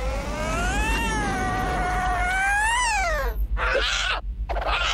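Cartoon cat yowling: one long drawn-out yowl that rises, holds and then drops sharply in pitch, followed by a shorter, harsher screech about three and a half seconds in.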